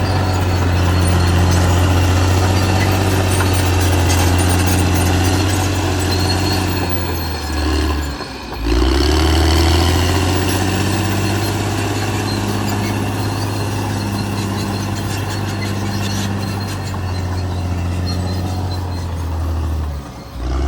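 Caterpillar D6R XL bulldozer's diesel engine running steadily with a deep drone. About eight seconds in it drops away briefly and comes back with a rising pitch as it revs up.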